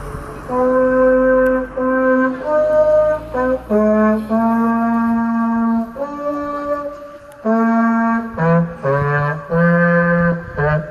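Solo trombone playing a slow melody of held notes, one at a time, with short gaps between them.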